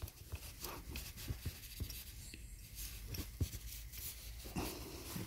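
Light rubbing and scattered small knocks of a sleeve and gloved hand brushing against the phone and the engine-bay hoses.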